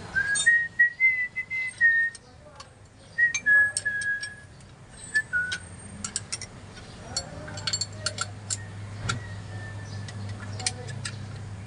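A person whistling a short tune of held notes that step up and down, then scattered sharp metallic clicks and taps of hand tools on the truck's A/C compressor mounting. A low steady hum comes in after about seven seconds.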